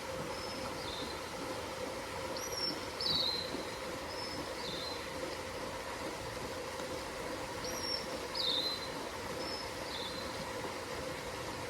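A bird whistling short phrases of clear high notes, several dropping in pitch, heard twice about five seconds apart, over the steady rush of water in a pond.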